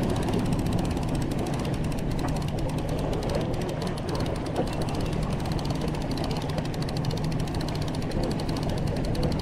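Fishing boat's engine running steadily at trolling speed: a constant low drone with wind and water noise over it.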